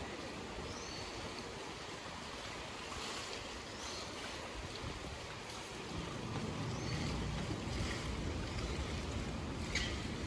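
Outdoor ambience with wind rumbling on the microphone, growing stronger about six seconds in, and a few faint, short, high chirps.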